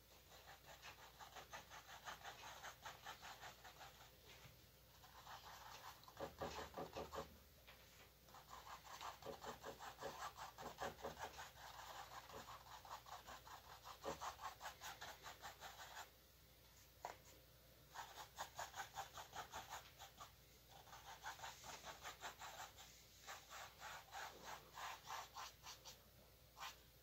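Faint runs of quick taps, about five a second, from a paintbrush dabbing paint onto a stretched canvas, with short pauses between runs.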